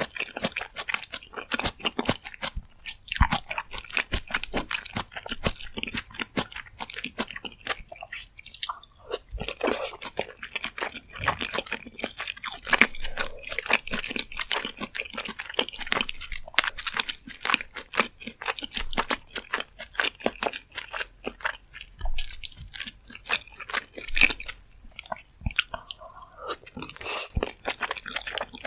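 Close-miked eating sounds of rosé jjimdak: steady chewing with many quick, wet, irregular clicks and smacks, broken by brief pauses.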